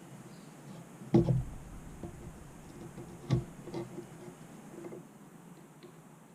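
Two sharp knocks about two seconds apart, followed by a few lighter taps, from handling metal parts while fitting new seals onto a hydraulic lift cylinder's piston.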